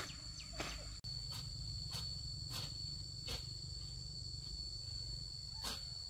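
Insects singing in a steady, high-pitched tone over a low rumble, with a few soft clicks scattered through it.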